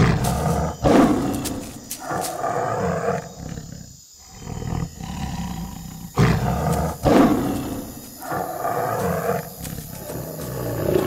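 Sound-effect big-cat roars and growls for an AI-made tiger-spider, one after another, with a brief lull about four seconds in.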